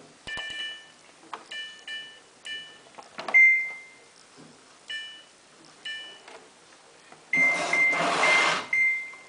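Samsung washing machine control panel beeping as buttons are pressed: a run of short beeps, with one longer, louder tone about three seconds in. Near the end a rush of noise lasts about a second and a half, with a repeated beep sounding through and after it.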